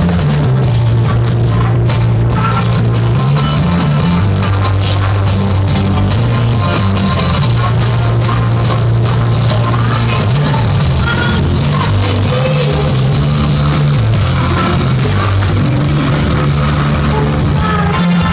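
Live rock band playing loud, recorded on a phone: a heavy bass line and drums drown out the singer's voice, and the sound is harsh.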